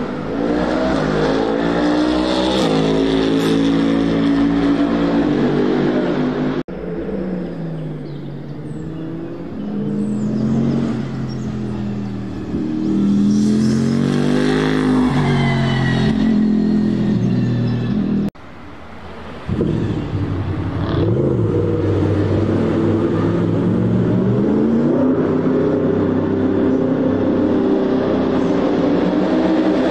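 Toyota GR GT3 race car's twin-turbo V8 running hard on track, its pitch climbing and dropping repeatedly as it accelerates and backs off. The sound breaks off abruptly twice, about a third and three fifths of the way through, and resumes on another pass.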